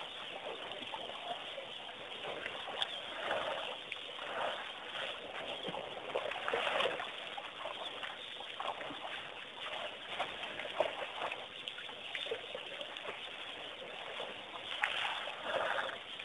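Irregular splashing and sloshing of water and mud as elephants wade in a waterhole and a calf wallows in the mud.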